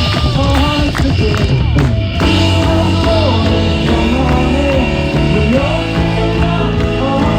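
Worship music with a band and a singing voice, with a steady beat.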